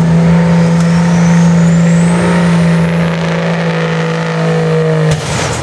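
Diesel pickup engine held flat out under heavy load as it pulls a weight sled: a loud, steady drone with a thin whine climbing in pitch over the first few seconds. About five seconds in, the engine note drops off abruptly as the throttle comes off.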